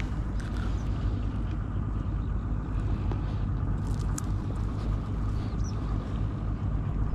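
Small engine running steadily with a low, even hum, with a few faint clicks over it.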